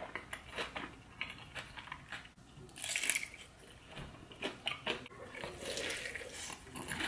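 Mouth sounds of eating batter-fried lobster: crunching bites and chewing in short, irregular strikes, louder about three seconds in.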